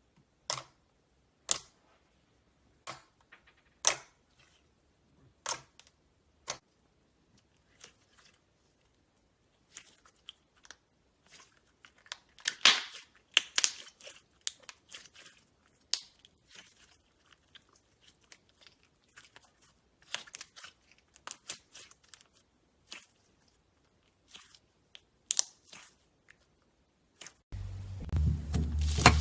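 Slime being handled, making sharp sticky clicks, pops and crackles. These are scattered at first and come in denser clusters about halfway through. Music begins near the end.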